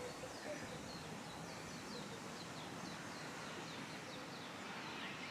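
A bird giving a long series of short, high chirps that slide downward, about two or three a second, over a steady outdoor hiss.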